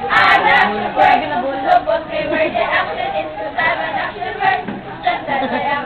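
A group of teenage students chanting a cheer yell together, many voices at once.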